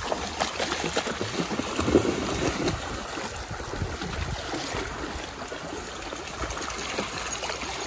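Shallow creek water running over rocks while dogs wade and splash through it, the splashing loudest about two seconds in.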